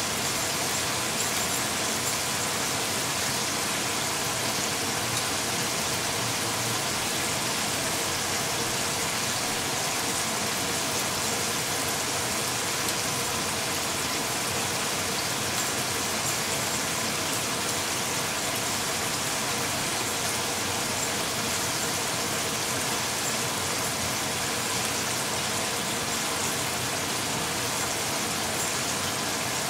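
A steady, even hiss that holds one level throughout, with a few faint steady tones under it.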